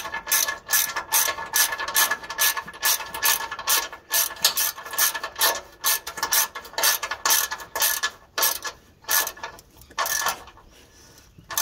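Hand ratchet and socket clicking in quick repeated back-strokes as a P-clamp bolt is tightened. The clicking dies away about a second before the end.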